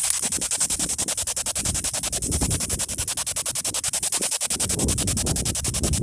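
P-SB7 spirit box sweeping through radio stations: an even, rapid chopping of static and scraps of broadcast sound, many pulses a second, over low wind rumble on the microphone.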